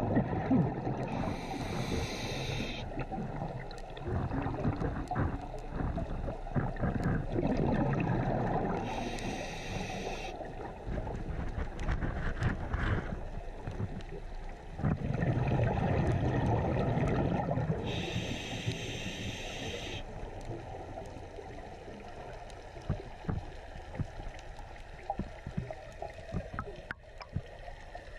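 Scuba diver breathing through a regulator underwater: three inhalations heard as a short hiss, each followed by a longer bubbling, gurgling rush of exhaled air. The bubbling grows fainter over the last several seconds.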